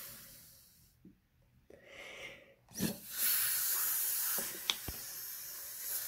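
Air being sucked out of a small plastic bottle through a drinking straw: a breathy hiss that fades, pauses, and returns louder for the last few seconds, with a few short clicks along the way. The suction empties the bottle so that room air inflates the balloon stretched inside it.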